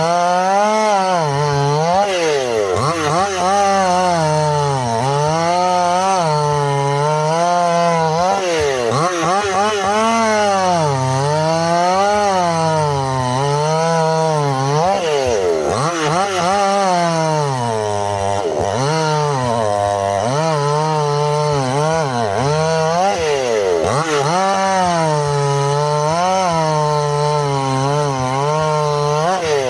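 Two-stroke chainsaw cutting wood at high revs. Its engine note dips and recovers over and over, about every two seconds, as the chain is loaded in the cut and eased off.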